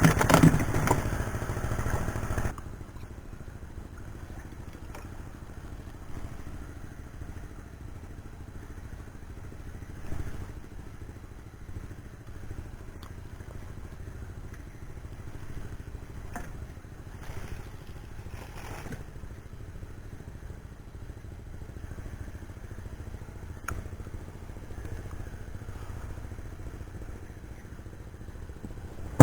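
A small boat's engine running steadily as a low hum, with a few scattered clicks and knocks. The sound is louder for the first couple of seconds, then drops suddenly to the steady hum.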